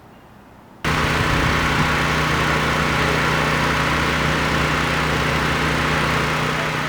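A large engine running steadily with a strong hiss over its low hum; it cuts in abruptly about a second in and eases off slightly near the end.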